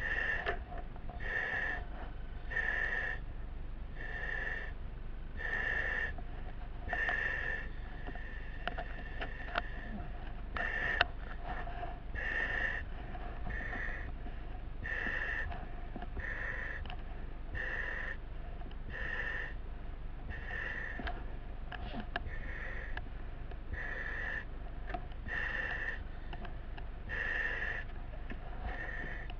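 A firefighter breathing through a breathing-apparatus face mask: regular hissing breaths about every second and a half, over a steady low rumble.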